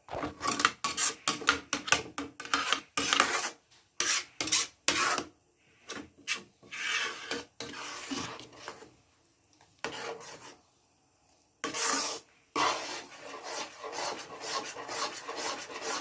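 A spoon scraping and stirring thick almond-cashew halwa around a pan in quick repeated strokes, with gaps midway, then steady again near the end. The halwa is thickening and rolling up into a mass at the end of its cooking.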